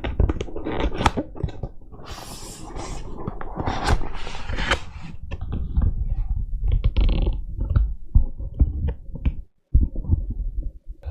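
Mechanical keyboard being typed on rapidly, a dense run of keystrokes with a deep, low thump to each press. The typing breaks off for a moment about nine and a half seconds in.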